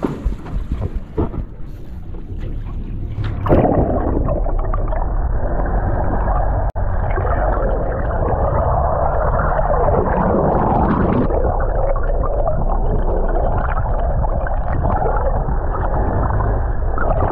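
Wind and boat noise with a few knocks, then about three and a half seconds in a sudden switch to a loud, muffled rushing and gurgling of water, as heard through a submerged microphone, with a steady low rumble underneath.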